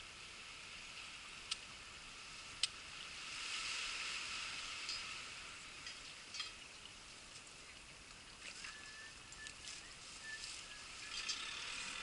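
Faint wash of surf on a rocky shore, a steady hiss that swells about four seconds in, with a couple of sharp clicks early on.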